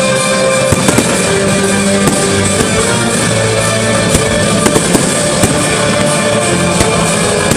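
Music plays steadily through a fireworks display, and shells burst overhead with about a dozen sharp bangs scattered through, several close together near the first second and again around the fifth.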